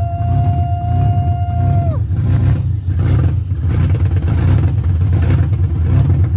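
Car engine running on its first start-up after an engine swap, a steady low drone. A steady high whine sounds over it and drops away about two seconds in.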